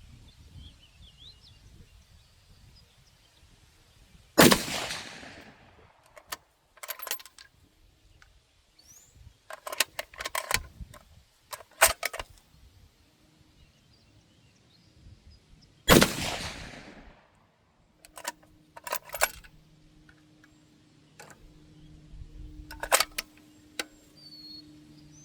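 Two rifle shots from a custom 25 GT rifle with a bare muzzle, about eleven seconds apart, each with a long echoing tail. Between and after them come short runs of sharp metallic clicks as the bolt is worked to chamber the next round.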